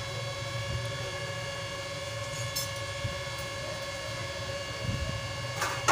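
A steady droning hum made of several steady tones over a low rumble, with a brief knock near the end.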